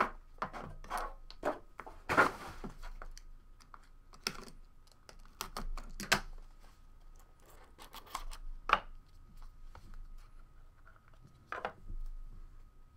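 Cardboard trading-card box being handled and opened by hand: scattered rustles, scrapes and light clicks of cardboard and paper packaging.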